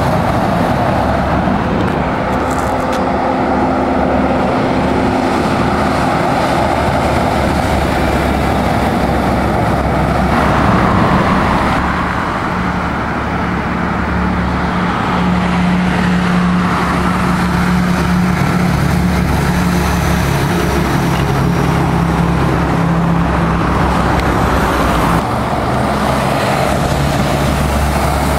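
Heavy diesel trucks driving past one after another on a road, their engines running steadily under road traffic noise. The engine note changes about a third of the way in and again near the end.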